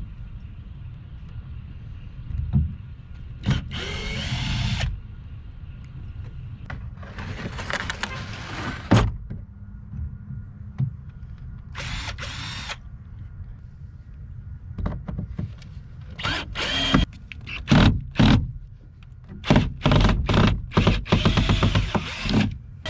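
Power drill backing screws out of a mount on a john boat, running in bursts: a few spaced ones, then many short bursts in quick succession in the second half, over a steady low rumble.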